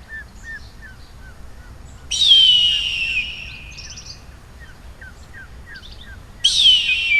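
Eagle screaming twice, each a harsh, high cry that slides downward in pitch for about a second, the second starting near the end. Underneath, a steady series of short, faint chirps repeats a few times a second.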